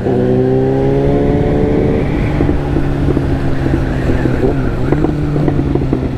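Motorcycle engine under way just after a gear change, its pitch rising for about two seconds and then holding steady at cruising speed, over wind and road noise.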